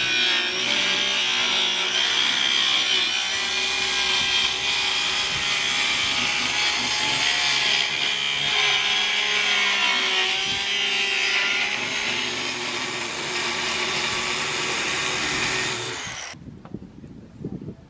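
Corded circular saw cutting lengthwise through a sheet of OSB, a steady motor whine under the rasp of the blade through the board. The saw stops about sixteen seconds in.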